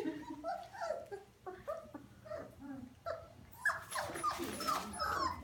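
Labrador retriever puppies whimpering and yipping in a string of short, high whines, several a second. A louder, busier flurry of yips comes about three and a half seconds in.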